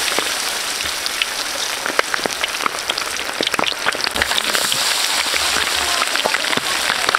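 Battered frogs deep-frying in a large aluminium wok of hot oil: a steady sizzling hiss full of quick pops and crackles.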